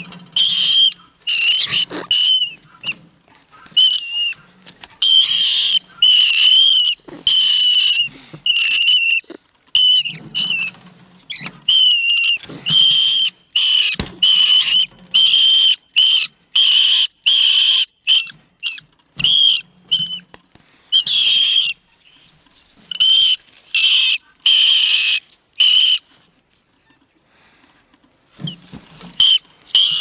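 Rat caught in a wire cage trap giving repeated high-pitched alarm squeals: short, wavering shrieks in quick series, with a pause of about two seconds near the end. This alarm call is meant to make other rats flee.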